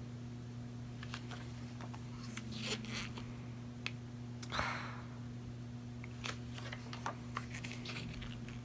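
Pages of a photobook being handled and turned: scattered light rustles and clicks, with one longer swish of a page about halfway through, over a steady low hum.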